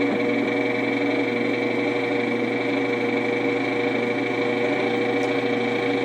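Star Mill No. 10 cast-iron coffee grinder running under the power of its 1.3 HP Dayton electric motor: a steady motor hum with a high whine above it, unchanging throughout.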